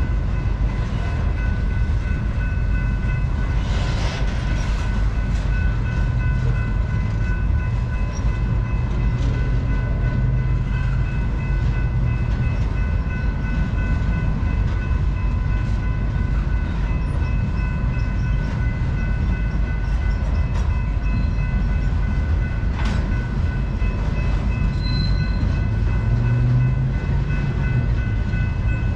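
Intermodal freight train cars rolling past with a steady low rumble and scattered clacks and knocks from the wheels. A steady high ringing whine sits over the rumble.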